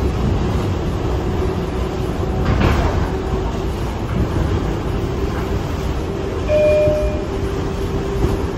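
Inside a moving R142A subway car: a steady rumble of wheels on rail with a held hum running through it, a short clatter about two and a half seconds in, and a brief higher tone near the end.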